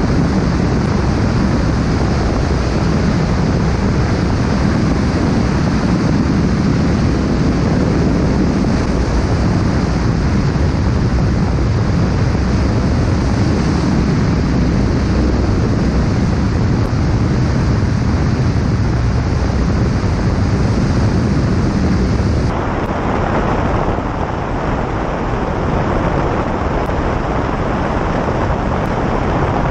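Light aircraft's piston engine and propeller running at steady power in flight, a continuous drone mixed with wind rush. About three quarters of the way through the sound changes abruptly in tone.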